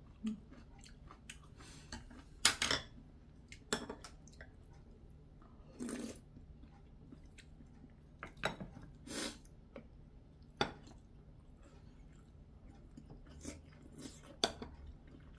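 Close-up eating sounds: chewing and mouth noises, broken by scattered light clicks and clinks of a spoon and chopsticks against bowls, with a few louder brief clatters.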